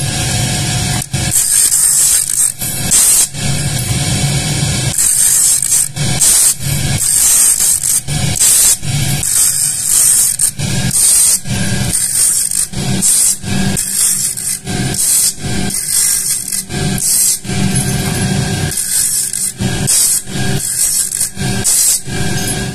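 Cast aluminium hooks ground one after another against a motor-driven grinding disc to clean up the raw castings: a rapid series of short hissing scrapes, each lasting under a second, over the motor's steady hum.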